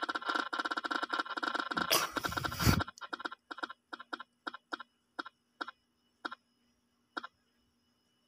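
Spinner-wheel app on a phone ticking through the phone's speaker as the wheel spins down: a fast run of clicks that slows to single ticks further and further apart, the last one about seven seconds in. A short rush of noise comes about two seconds in.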